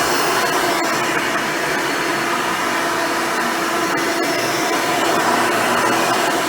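Hoover Elite upright vacuum cleaner with a dual-row brush roll running steadily while vacuuming, a constant motor hum with a few faint ticks.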